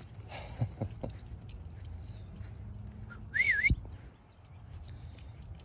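A short whistled note that rises, dips and rises again, about three and a half seconds in, over a low steady rumble.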